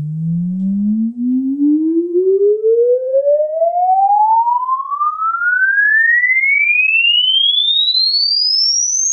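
Room EQ Wizard logarithmic sine sweep played through a loudspeaker for a frequency-response measurement. It is a single pure tone climbing smoothly and steadily from a low hum to a high whistle, with faint overtones above it at first.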